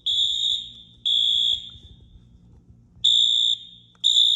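Building fire alarm sounding its evacuation signal: high-pitched half-second beeps about one a second in groups of three, with a longer pause between the groups, the temporal-three evacuation pattern.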